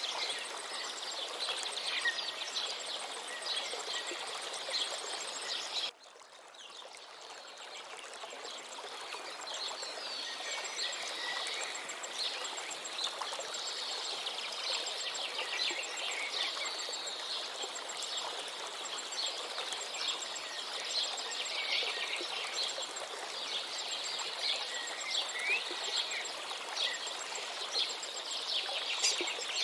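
River water running steadily with many small birds chirping and twittering over it. About six seconds in the sound cuts out suddenly and fades back in over a few seconds.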